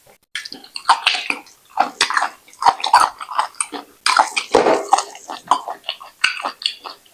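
Wet eating sounds: fufu with slimy ogbono soup being chewed, with quick irregular wet smacks close to the microphone.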